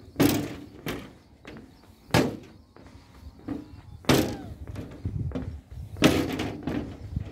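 Footsteps of someone walking along a railway bridge's track. A hard knock lands about every two seconds, with lighter knocks and scuffs in between.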